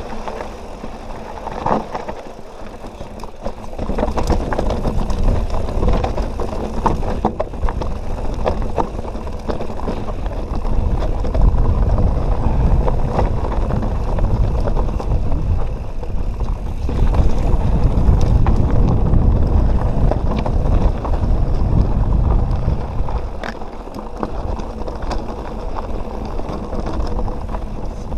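Canyon Nerve mountain bike riding a rough trail: tyre noise over rock and dirt with frequent rattles and knocks from the bike at each bump. Wind buffets the microphone, heaviest from about four seconds in, dipping briefly in the middle and easing near the end.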